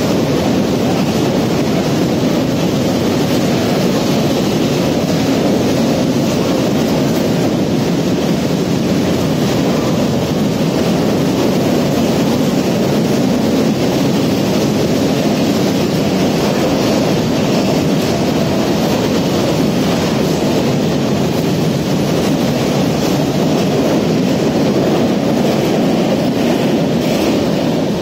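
Freight train of open box wagons rolling past at close range: a loud, steady rumble and clatter of wagon wheels on the rails, easing off slightly right at the end as the last wagons go by.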